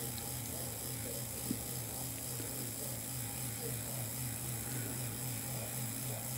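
Diametrically magnetized ring magnet spinning on a wooden swizzle stick above a wall-wart transformer, running as a simple synchronous motor locked to the transformer's mains field at 3600 rpm: a steady low buzz that pulses about four times a second, with a light tick about one and a half seconds in.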